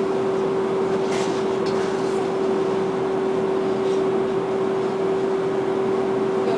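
A steady mid-pitched hum held over an even rushing noise, unchanging throughout.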